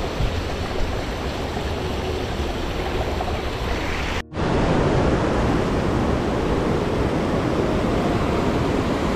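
Mountain river water rushing over boulders, a steady noise with no distinct events. It cuts out for an instant about four seconds in and comes back louder and deeper.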